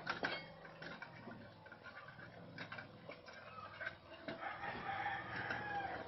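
Young puppies eating from a plate, with small clicks and smacking sounds. About four seconds in, a rooster crows once in the background, a long wavering call.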